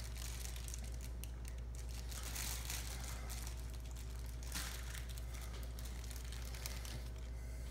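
Thin clear plastic bag crinkling in bursts as it is worked loose and pulled off a statue's head by hand, over a steady low hum.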